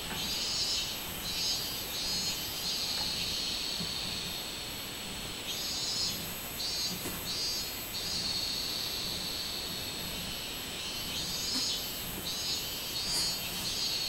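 Robust cicadas (minmin-zemi) singing: three bouts of pulsing "meen-meen" calls come about every five seconds over a steady high cicada drone.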